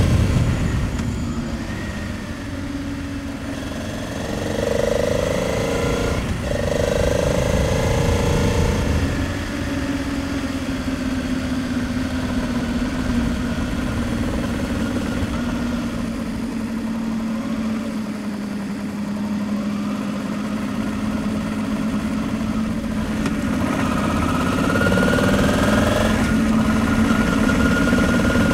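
Honda Transalp 700's V-twin engine running on the move, with wind and road rumble. The revs climb about four seconds in and again near the end, with a steadier, slowly easing stretch between.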